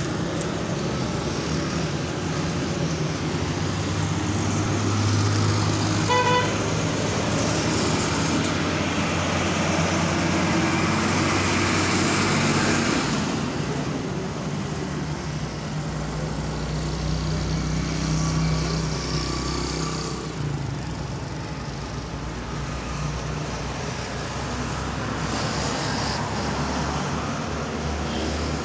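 Road traffic: motor vehicle engines running steadily with a low hum that shifts in pitch, and a brief horn toot about six seconds in.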